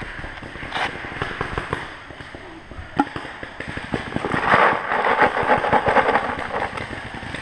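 Paintballs poured from a pod into a Dye Rotor hopper, a dense rattle of many small balls running in for about two seconds past the middle. Before it, gear rustles and there is one sharp click about three seconds in.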